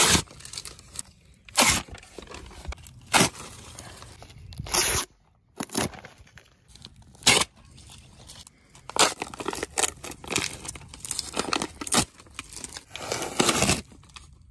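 Plastic sheeting and painter's tape being ripped off a fiberglass hull patch. About half a dozen short, sharp tearing rips come a second or two apart, then many rips in quick succession near the end.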